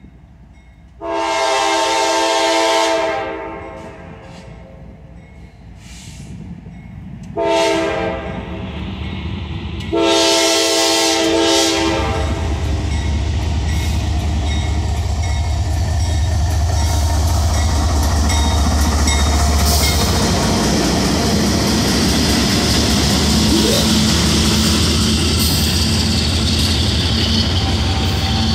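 CSX freight locomotive sounding its air horn for a grade crossing: three chord blasts, the middle one short, within the first twelve seconds. Then the diesel locomotives pass close by with a loud, steady engine rumble and the noise of wheels on rail.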